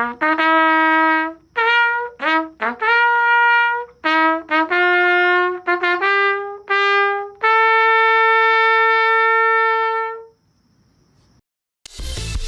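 Solo trumpet playing a short melody of quick separate notes that climbs and ends on one long held note, then stops. Near the end, loud electronic music starts.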